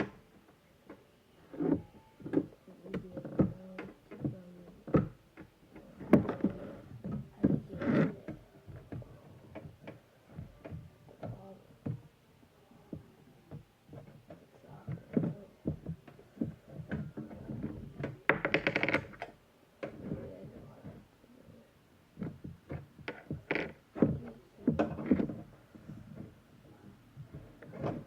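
Irregular taps, thunks and rustles of a toy box and its packaging being handled, with one longer scraping rustle about two thirds of the way in.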